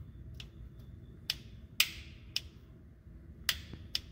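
Self-aligning clutch release bearing being rocked in the hand, its inner and outer races shifting against each other with about six sharp metallic clicks at irregular intervals, some with a faint ring. The free play is normal for this self-aligning design and not a sign of a bad bearing.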